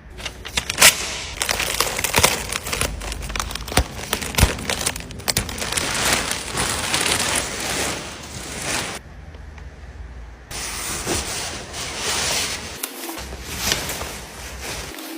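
Packaging crinkling and rustling while it is handled, with many sharp clicks and knocks and a brief drop in the hiss about two-thirds of the way through.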